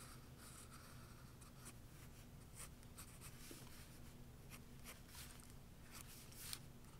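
Mechanical pencil scratching on paper in short, irregular strokes while sketching, faint, over a low steady hum.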